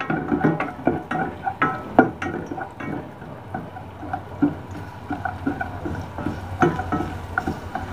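A slotted spoon stirring chopped onion around a white-lined nonstick frying pan, making a run of irregular taps and scrapes against the pan.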